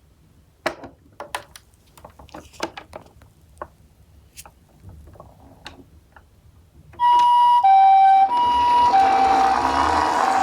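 Light scattered clicks and taps for several seconds. Then, about seven seconds in, a two-tone hi-lo ambulance siren starts, alternating between two pitches, with a rushing hiss and low rumble growing beneath it.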